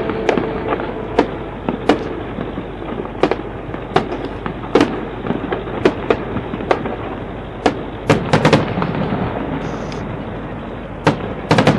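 Aerial firework shells bursting in an irregular series of sharp bangs, several a second at times, with quick clusters of bangs about eight seconds in and again near the end.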